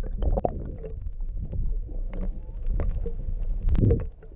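Water sloshing and rumbling around an action camera held underwater, muffled, with scattered small clicks and knocks and a louder surge near the end.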